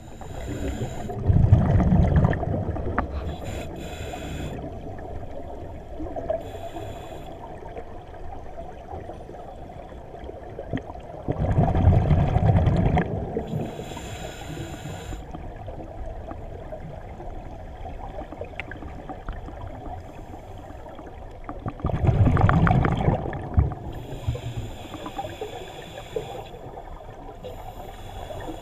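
Scuba diver breathing through a regulator underwater. There are three long exhalations about ten seconds apart, each a loud rumble of bubbles, and the regulator hisses on the inhalations between them.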